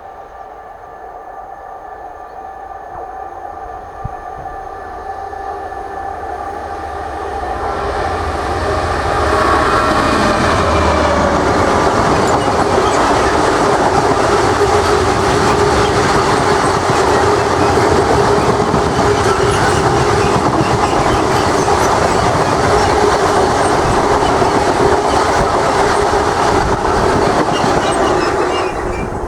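Freight train passing at speed. The locomotive draws near with a growing sound and several held tones, which drop in pitch as it passes about ten seconds in. A long, loud, steady rumble and clatter of the wagons follows.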